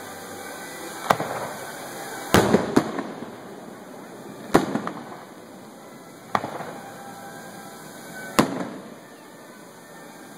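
Aerial fireworks shells bursting: about six sharp bangs a second or two apart, two of them in quick succession, each trailing off in echo.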